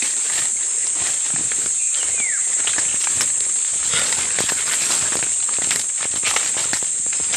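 Steady high-pitched drone of forest insects, with irregular footsteps and rustling as someone walks through undergrowth. A short falling whistle sounds about two seconds in.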